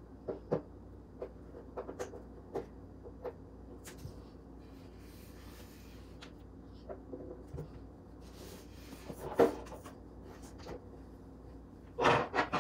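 Small toys, a plastic doll chair and a nail polish bottle, being picked up and set down on a cardboard box top: a series of light taps and clicks, with a louder knock about nine seconds in and a quick cluster of knocks near the end.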